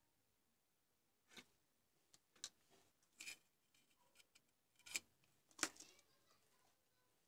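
Faint, scattered clicks and taps of fingers handling a tiny mouse component and the mouse's circuit board on a workbench, about eight in all, the two loudest close together about five seconds in.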